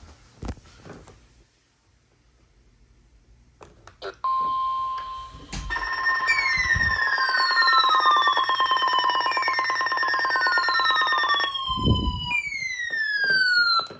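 Emergency alert tones going off together. A steady high weather-radio warning tone starts about four seconds in. Pulsing beeps and a repeating siren-like falling sweep, about every three seconds, then pile on top, and all of it stops abruptly near the end, with a couple of low bumps along the way.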